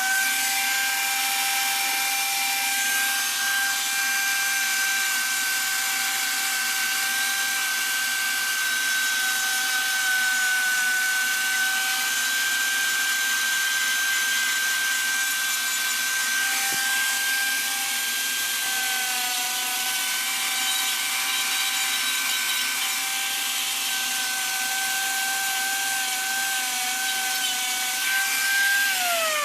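High-speed rotary tool fitted with a carbide saber-tooth flame bit, grinding into wood: a steady high whine over a noisy grinding, sagging slightly in pitch now and then as the bit bites. Near the end it is switched off and the whine falls away as it spins down.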